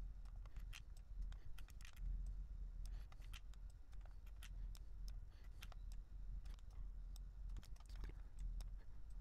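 Faint computer mouse clicks, irregular and spread throughout, over a steady low hum.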